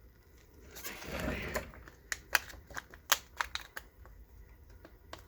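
A brief rustle of packaging, then a quick, irregular run of sharp clicks and taps, about a dozen of them, as small hard items are handled.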